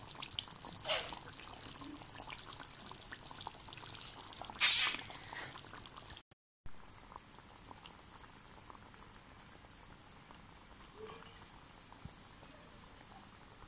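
Chicken curry simmering in a metal kadai on a wood-fired chula: a steady crackling, spluttering hiss of bubbles, with two louder splutters about a second in and near five seconds in. After a brief dropout a little past halfway, the simmering goes on more quietly.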